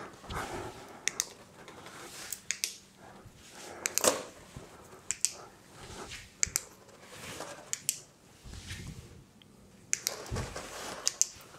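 Scattered light clicks and rustles at irregular intervals: handling noise as a flashlight wrapped in a sheet of paper is moved about, with a few sharper clicks now and then.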